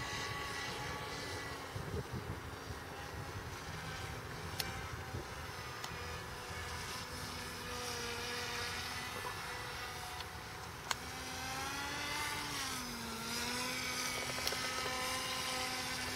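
Motor and propeller of a radio-controlled powered paraglider's Parapak unit running in flight: a steady droning hum whose pitch rises and then dips about twelve seconds in before holding again. Wind rumbles on the microphone underneath, with a couple of sharp clicks.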